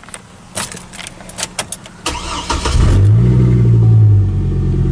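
Five-cylinder truck engine with its muffler bypassed, started for the first time: a few clicks, then the starter cranks about two seconds in. The engine catches, flares up briefly and settles into a steady idle.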